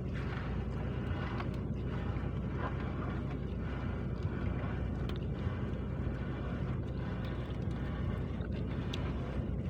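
Small boat's engine running steadily, a low even hum with wind and water noise over it.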